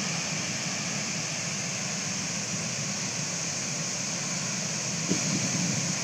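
Large waterfall in heavy flow: a steady, even rush of falling water.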